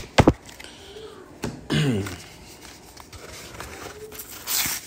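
Handling of a trading card pack and cards on a table: a few sharp clicks of card stock just after the start, and a short crinkle of the pack wrapper near the end.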